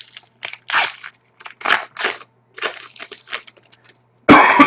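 A series of short crinkling, crackling rustles as a foil hockey-card pack wrapper is torn open and handled and the cards are shuffled. A louder throat clearing comes near the end.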